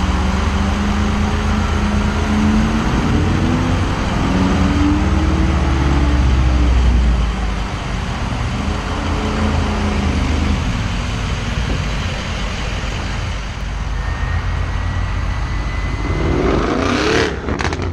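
A vehicle engine revving up and down repeatedly, loud and close. A thin, steady high tone comes in late, and a brief sharp rush comes near the end.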